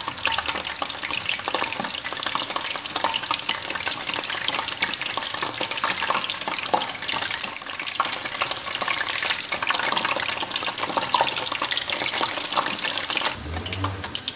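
Lampascioni (tassel hyacinth bulbs) deep-frying in hot oil, a steady dense crackle of sizzling.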